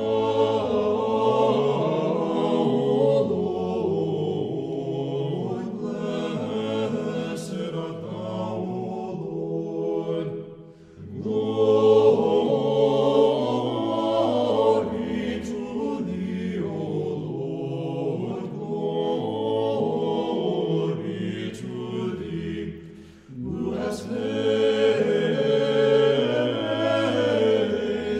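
A choir singing Orthodox church chant in long held phrases, pausing briefly twice, about eleven and twenty-three seconds in.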